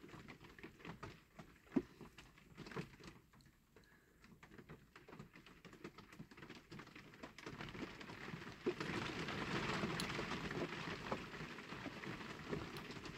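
Faint small clicks and scrapes of fingers working a metal axle and wheel into a diecast toy car's body. About seven and a half seconds in they turn into a denser, steady rustling.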